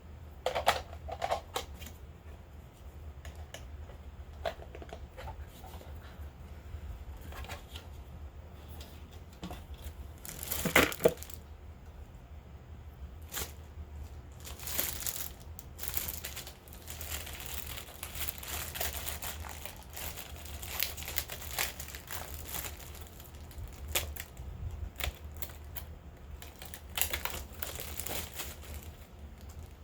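Packaging being handled and opened: crinkling, rustling and tearing of wrapping, with scattered taps and clicks. A louder burst comes about eleven seconds in, and longer rustling follows in the middle stretch, over a steady low hum.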